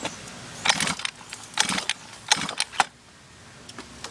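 Handling noise from a pocket dirt bike: a handful of sharp clicks and rattles in quick groups, with a quieter stretch near the end.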